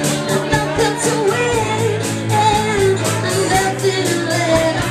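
Live band playing a rock song: a female singer over keyboard, electric guitar and drums, with sustained low notes and a steady beat.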